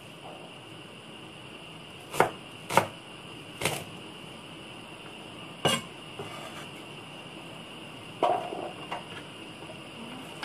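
Cleaver blade knocking on a wooden cutting board while mincing shallots: about five separate sharp chops spaced out rather than a fast rhythm, with a short scrape of the blade across the board about eight seconds in.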